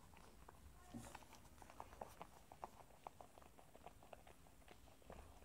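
Faint, quick wet clicks of a mother miniature dachshund licking her newborn puppy, several a second.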